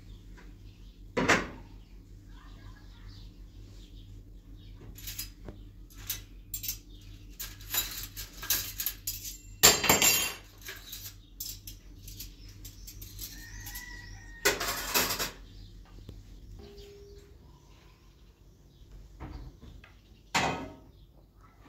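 Scattered knocks and clatter of things being handled, the loudest a noisy scrape-like burst about ten seconds in and another about five seconds later, over a low hum that stops about two-thirds of the way through.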